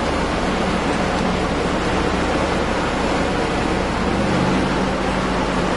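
Off-road vehicle moving down a steep rock slope: a steady low engine drone under constant wind and rumble on the onboard microphone.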